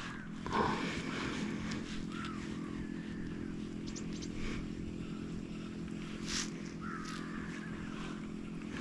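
Steady low motor drone with several even tones throughout, and faint short squeaks and ticks above it.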